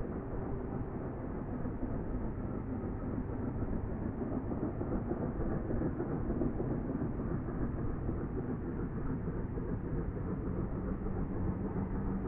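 Distant steam locomotive, the three-cylinder LNER A3 Pacific 60103 Flying Scotsman, working hard uphill with its train: a steady, continuous exhaust sound carried from afar.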